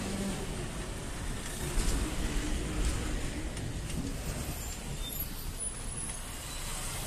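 Road traffic: a truck and cars passing slowly, with engines running and tyre noise on the road surface. The loudest moment comes about two seconds in.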